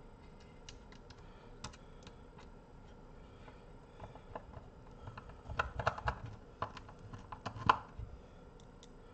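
Small sharp clicks and taps of a screwdriver and small screws being worked at the power transistors on a car amplifier's metal chassis: a few scattered clicks, then a quick cluster in the second half, the loudest near the end.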